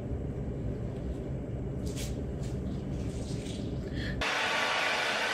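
A low steady rumble with a few faint clicks, then about four seconds in it cuts abruptly to a handheld hair dryer blowing, a louder, even hiss.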